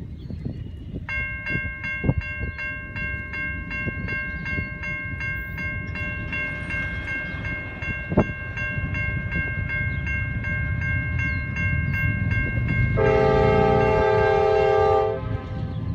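Railroad crossing bell starting to ring about a second in, dinging rapidly, about twice a second, to warn of an approaching train. Near the end a Norfolk Southern diesel locomotive horn sounds one long blast of about two seconds, the loudest sound here, over a low rumble.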